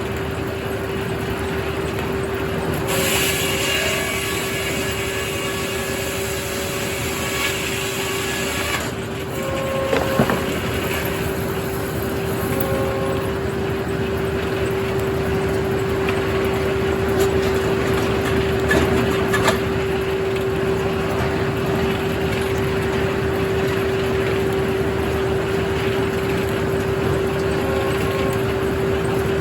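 Circular sawmill machinery running with a steady hum. A stretch of hissing comes from about 3 to 9 seconds in, and a few knocks follow around 10 and 18–19 seconds.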